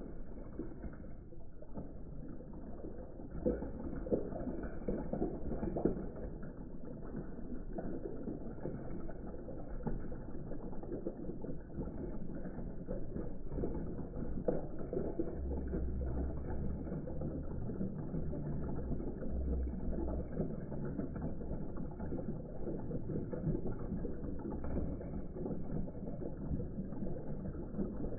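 Continuous mechanical clicking and rattling.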